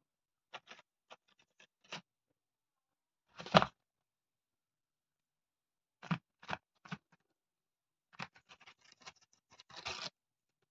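Barn owl tearing paper with its beak and talons: short crackling rips in bursts, the loudest about three and a half seconds in, with a quick run of them near the end.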